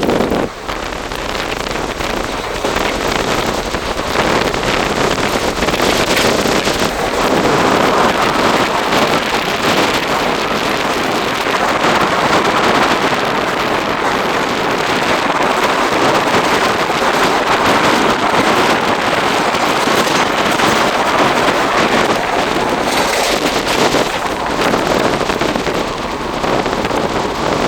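A moving train heard from aboard: a steady loud rush of wind and wheel-on-rail running noise with a dense rattle.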